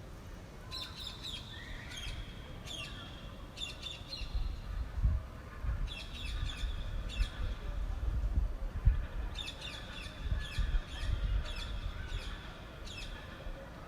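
Small birds chirping in three quick bursts of short, high notes, over the low gusty rumble of wind buffeting the microphone, which peaks a few times.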